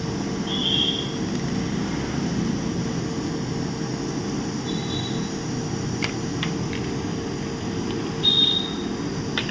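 Steady low hum of bench equipment running, with three short high-pitched electronic beeps at about one, five and eight seconds in.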